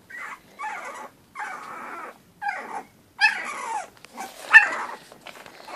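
Two-week-old boxer puppies crying: a string of short, high-pitched cries, several falling in pitch, with the loudest about four and a half seconds in.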